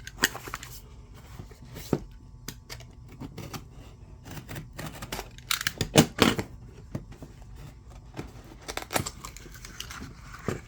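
A cable's retail packaging being opened by hand: scattered clicks, rustling and tearing, loudest about six seconds in.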